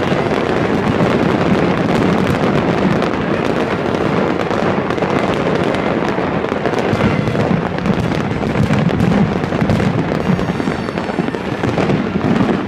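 Fireworks display going off in a rapid, unbroken barrage of bangs and crackles.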